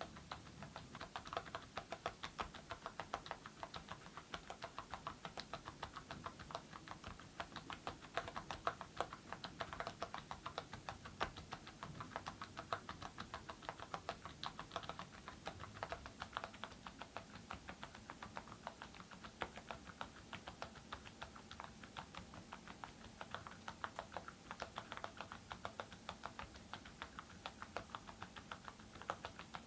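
Steady, fast typing on a mechanical keyboard fitted with Awekeys full-metal (aluminium) keycaps over silent switches.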